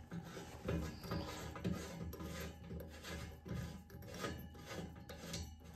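Radiator valve being tightened onto its tail with a spanner: a dozen or so irregular short metallic scrapes and knocks, over a steady low hum.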